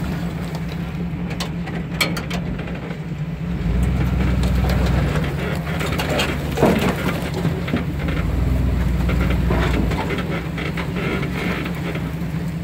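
Truck engine running under load off road, revving up and easing off, while branches and brush scrape against the body and snap with sharp crackles.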